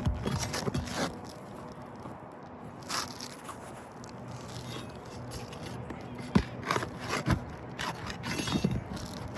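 Asphalt roof shingles scraping and rubbing against each other as a shingle is worked out from or slid in under the course above, with a few sharp knocks.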